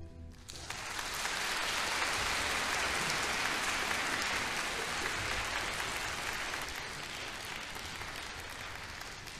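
Audience applauding, starting about half a second in and slowly dying down near the end.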